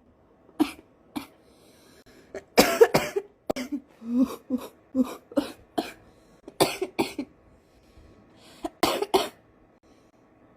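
A woman's smoker's morning cough: repeated coughing in several short bouts of a few coughs each, with quiet pauses between them.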